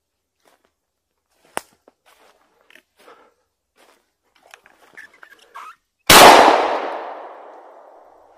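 Footsteps crunching through dry fallen leaves, then about six seconds in a single loud shot from an MR-155 semi-automatic shotgun, its echo dying away over the next two seconds.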